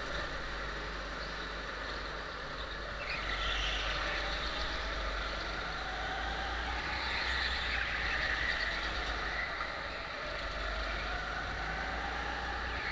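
Go-kart racing, heard from onboard the kart: its motor note rises and falls as it accelerates and slows through the corners, over a steady low rumble.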